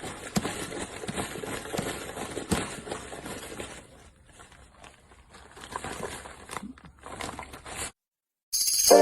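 Irregular rustling and light clicking of the inflated plastic Scrubba wash bags being handled, thinning out about halfway and stopping shortly before music begins.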